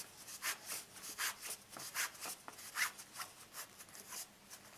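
Fabric strap rustling and scuffing as hands bunch it along a hollow tube turner to turn it right side out, in short irregular rubs, a few each second.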